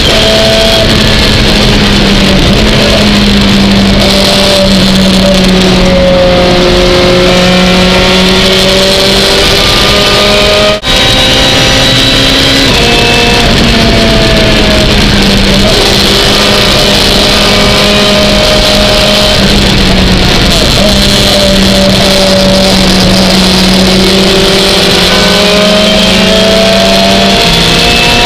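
Lotus Exige GT3 race car's engine heard loud from inside the cockpit, running hard under racing load, its note gliding up and down and stepping in pitch a few times. The sound cuts out for an instant about eleven seconds in.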